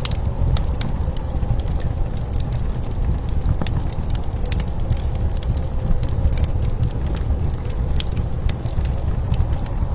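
Wood fire crackling with frequent, irregular sharp pops over a steady low rumble of blizzard wind.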